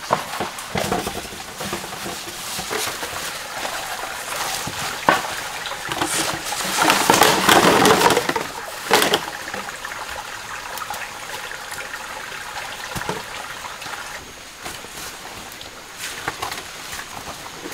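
Water splashing and sloshing as bamboo tube fish traps are handled in a shallow rocky stream, with the bamboo knocking now and then. A louder stretch of sloshing water comes a little past the middle.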